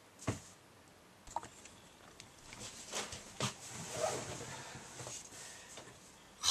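Handling noise from a person moving and reaching close to the camera: clothing rustling with scattered small clicks and knocks, and one louder sharp noise at the very end.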